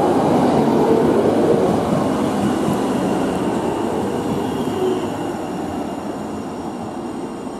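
Class 399 Citylink electric tram-train running past close by, its wheels rumbling on the rails with a faint whine above. Loudest about a second in, then fading steadily as it moves away.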